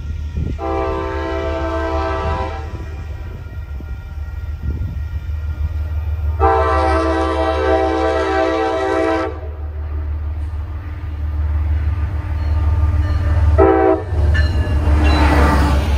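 MBTA HSP46 diesel locomotive approaching with its engine rumbling and sounding its multi-note horn: two long blasts and then a short one, the opening of the standard long-long-short-long grade-crossing signal. Near the end the locomotive passes close by, loud with engine and wheel noise.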